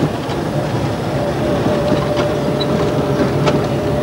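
A car driving along: steady engine and road noise with a low hum, a faint steady whine from about halfway through, and a couple of light knocks.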